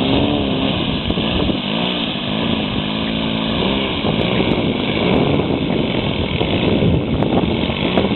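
Saito 57 gas engine of a large radio-controlled Cessna 150 model running as the plane taxis on grass, propeller turning. In the first few seconds its pitch rises and falls repeatedly as the throttle is worked, then it runs on more steadily.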